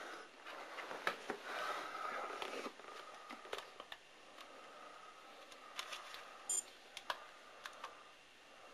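Scattered clicks and handling noise from a handheld camcorder and small electronic gear being picked up and worked on a tiled floor, with a faint steady whine through the middle and a short high chirp about six and a half seconds in.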